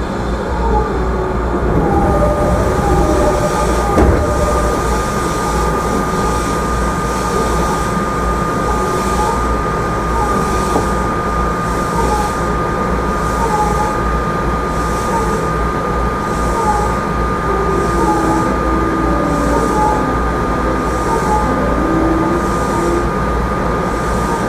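Running noise heard inside an E217 series electric commuter train's motor car at steady speed: a continuous rumble of wheels on rail under one steady high tone that holds its pitch. A soft hiss repeats a little more than once a second through the second half.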